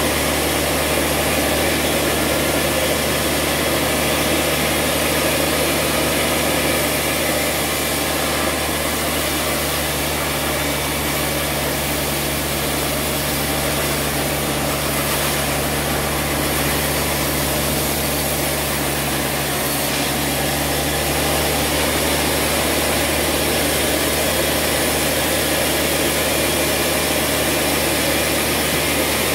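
Vertical band sawmill running steadily while a log is fed through its blade and a slab is sawn off: a constant machine hum under the noise of the cut.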